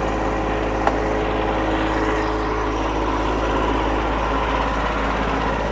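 Wood-Mizer LX55 band sawmill running steadily, its engine and blade at a constant pitch while sawing a hardwood hickory log, with a single short click about a second in.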